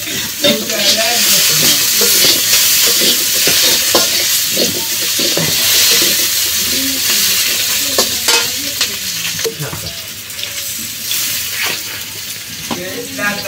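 Sliced potatoes with onion and green chillies sizzling in oil in a steel wok, being sautéed while a metal spatula scrapes and knocks against the pan again and again.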